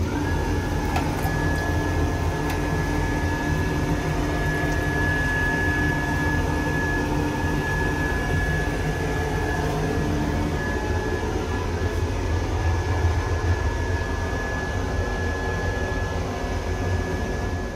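A train toilet's built-in hand dryer running with a steady high whine, over the low rumble of the moving train.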